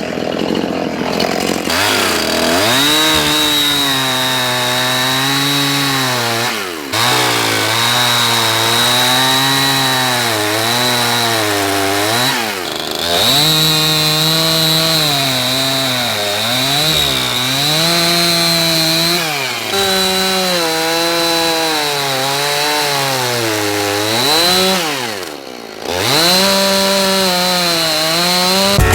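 Petrol chainsaw engine running and being revved up and down over and over, its pitch rising and sagging every few seconds, with brief drops toward idle.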